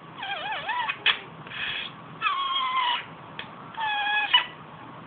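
A pet making a string of four short trumpet-like calls about a second apart. The first wavers up and down in pitch and the later ones are held steadier, with a couple of brief clicks between them.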